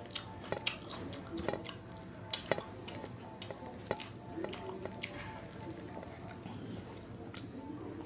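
A hand mixing jeera rice into dal makhani on a stainless steel plate: soft squishing with scattered light clicks and taps of fingers on the steel, most of them in the first half.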